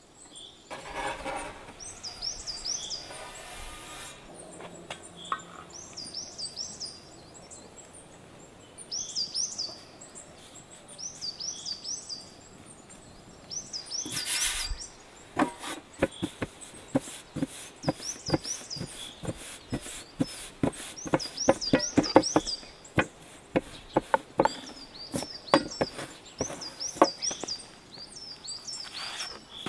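A small bird chirping repeatedly in short runs of two to four quick high notes. From about halfway on, a fast, uneven series of sharp slaps and taps, the loudest sounds here: floured hands slapping and stretching flatbread dough.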